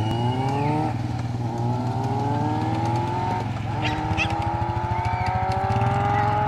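Suzuki sport motorcycle accelerating away through the gears: the engine note climbs in pitch, drops at a shift about a second in and again about three and a half seconds in, and climbs again each time. A steady low engine drone runs underneath.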